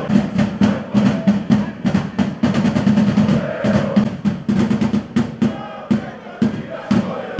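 Music driven by fast drumming: sharp snare-like hits several times a second over a steady low note.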